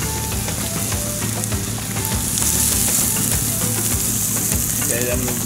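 Chopped onions and green peppers sizzling in oil in a large wide pan over a gas burner, stirred with a metal spatula that scrapes and clicks against the pan. A steady low hum runs underneath.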